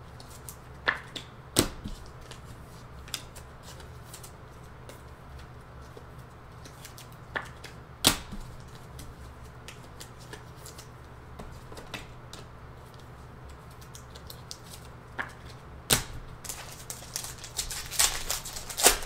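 Scattered sharp clicks and taps of trading-card packs being handled on a tabletop, then a run of crackling near the end as a foil Panini Chronicles basketball pack is torn open.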